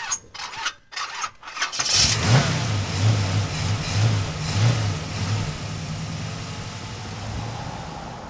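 A car engine cranked in several short bursts, catching about two seconds in and revved a few times, then settling to a steady idle that slowly fades.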